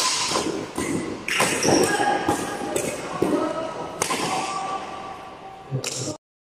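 Badminton doubles rally in a large indoor hall: several sharp racket hits on the shuttlecock at irregular intervals, over players' footsteps on the wooden court and their voices calling. The sound cuts off suddenly near the end.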